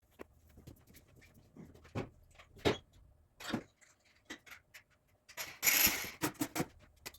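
Hand tools working at a glow plug's electrical connector in a diesel engine bay: scattered light clicks and knocks, a louder rasping scrape a little before six seconds in, then a quick run of clicks.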